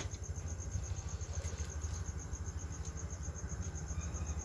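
Crickets chirping in a fast, even pulse, over a low steady hum.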